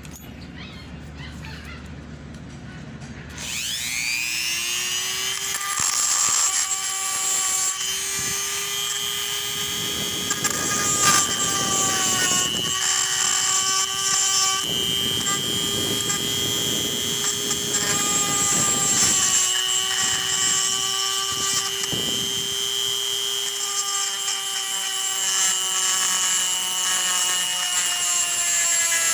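Small electric power tool spinning up about three seconds in and then running with a steady whine, its pitch sagging slightly now and then. Stretches of rougher grinding noise run over it as it works material.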